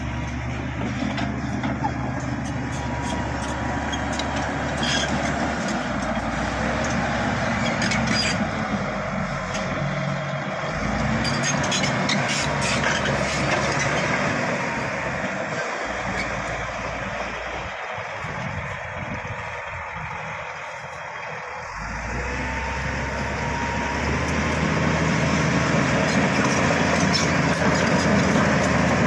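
Bulldozer's diesel engine working under load, with clanking and rattling from the tracks and blade. The engine note drops back a little past the middle and builds again near the end.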